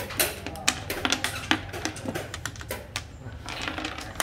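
Xiangqi pieces clacking against one another and the wooden board as they are gathered up and set out for a new game: a quick, irregular run of clicks.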